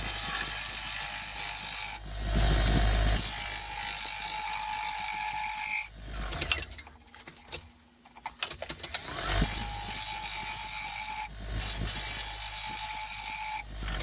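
Bowl gouge cutting a spinning wooden bowl on a Laguna lathe: a rough scraping noise in two long stretches, with a quieter lull near the middle.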